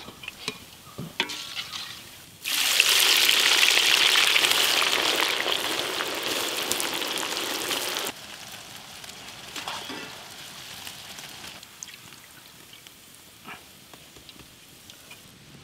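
Sliced onions deep-frying in a large iron kadai of hot oil. A loud sizzle starts suddenly a couple of seconds in and cuts off sharply about eight seconds in, leaving a softer sizzle. Before it come light metallic clicks of a wire-mesh strainer against a steel plate.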